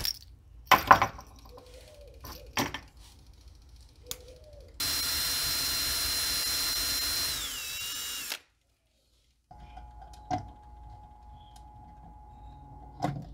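Handheld power drill running for about three and a half seconds as it bores into a carved wooden lure body, its whine dropping in pitch just before it stops. A few light clicks and knocks come before it.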